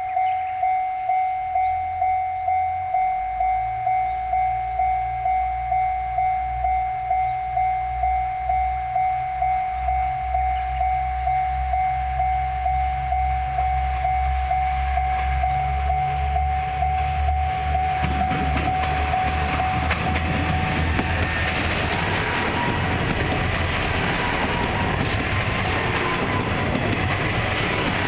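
Japanese level-crossing warning bell ringing in a steady pulsing ding-ding while a KiHa 110 series diesel railcar pulls away from the station, its engine drone building underneath. About two-thirds of the way through the train comes close and its engine and wheel noise swell over the fading bell.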